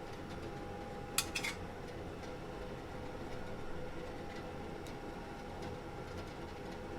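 A short clink of tableware, a few quick strikes with a ringing tail, about a second in, over a steady low hum.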